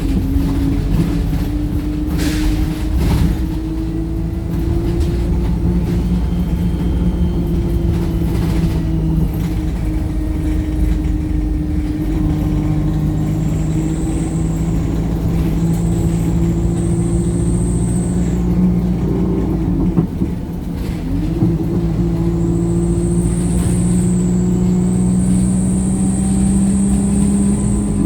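Wright StreetLite single-deck bus heard from on board, its diesel engine running under way. About 20 seconds in the pitch drops sharply and then climbs again, as at a gear change. A short hiss comes about two seconds in, and a high whine comes and goes in the second half.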